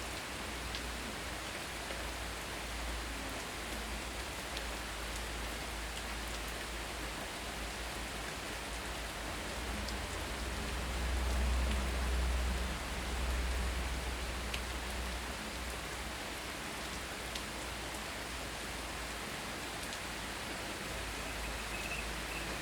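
Heavy rain falling steadily, a dense hiss with individual drops ticking close by, over a low rumble that swells for a few seconds midway.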